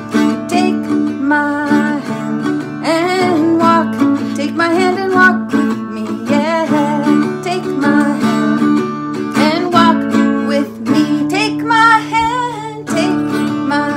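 Small-bodied acoustic guitar strummed steadily in chords, with a woman singing over it in phrases that come and go.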